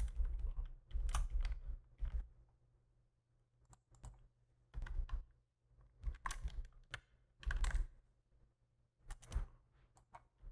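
Computer keyboard keys tapped in short bursts of a few keystrokes each, with pauses of a second or so between bursts.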